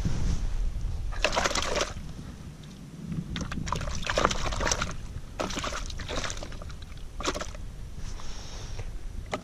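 Water splashing and sloshing in a bucket as a caught perch is put into it, in several short splashes a second or so apart.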